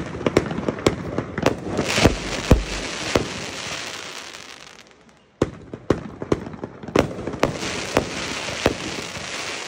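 Consumer fireworks going off: a rapid run of sharp bangs over a dense hiss, fading out about five seconds in, then a second run of bangs and hiss starting right after.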